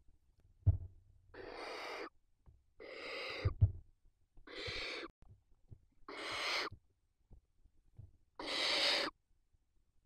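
Barn owls in the nest giving five harsh hissing calls, each under a second long, about one and a half seconds apart: the food-begging hiss of barn owl owlets. Two dull knocks, about a second in and in the middle, are the loudest sounds.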